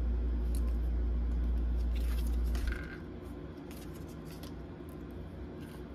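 Soft clicks and rustles of tarot cards being handled and laid out, over a low hum that cuts off suddenly about three seconds in.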